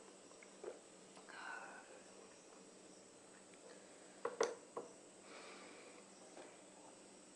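A drinking glass set down on a wooden side table: three sharp knocks close together about four seconds in, the loudest sound. Before it, a faint breath out and a small click.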